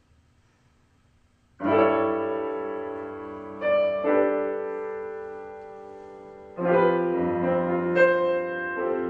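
Grand piano played solo: after about a second and a half of quiet, slow chords are struck and left to ring and fade, a new chord or a few added notes every second or two. These are the opening bars of the piece.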